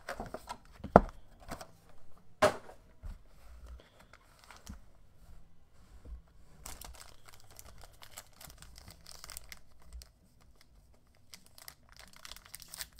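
A trading-card hobby box being handled and opened, with two sharp knocks about one and two and a half seconds in, then the foil wrapper of a card pack crinkling as it is pulled out and handled.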